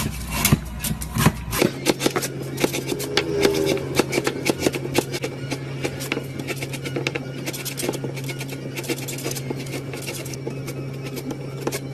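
Slime being squeezed and poked by hand, making quick irregular sticky clicks and pops, over a steady low hum.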